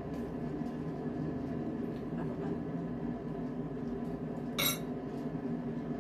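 A metal spoon clinking and scraping on a dinner plate during a meal, with one sharp clink that rings briefly about two-thirds of the way through.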